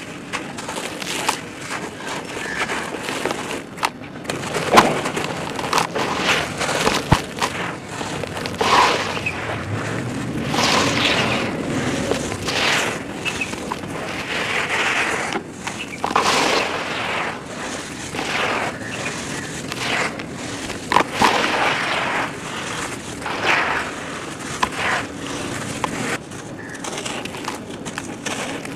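Hands squeezing and crumbling chunks of sand and red dirt in a plastic tub, making gritty crunching and crackling in irregular bursts.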